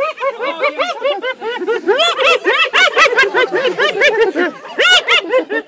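Spotted hyenas giggling: a fast run of short, high notes that each rise and fall, several a second, loudest about two seconds in and again near the end. This is the hyenas' excited giggling call while they compete for food at a feeding.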